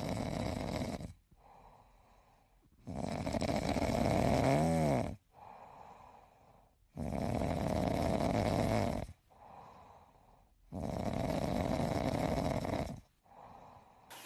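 A pet snoring in its sleep: four loud, rasping breaths in, about every four seconds, each followed by a short, softer breath out. One snore near the middle has a whistling pitch that rises and falls.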